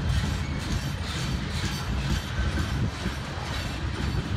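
Covered hoppers and tank cars of a slow-moving CSX mixed freight train rolling past, a steady low rumble of steel wheels on the rails.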